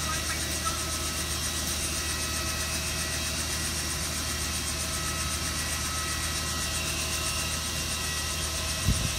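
Robinson R44 Raven II helicopter's six-cylinder Lycoming engine idling on the ground with its rotor turning: a steady drone with a steady high whine over it. A few low thumps near the end.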